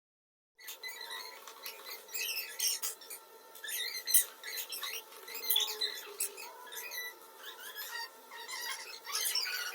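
Slime being stirred and squished, with rapid, irregular sticky clicks and small squelching squeaks. It starts abruptly about half a second in.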